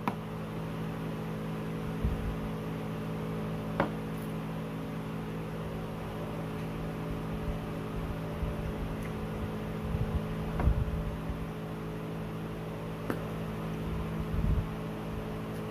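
Mouth-closed chewing of a forkful of fried spaghetti: a few sharp clicks and soft low thumps, the strongest about two-thirds of the way through, over a steady mechanical hum of several tones from an appliance or fan in the room.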